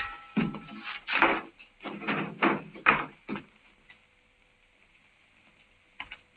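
A run of about six short knocks or bumps over the first three seconds, then quiet, and a single sharp click near the end.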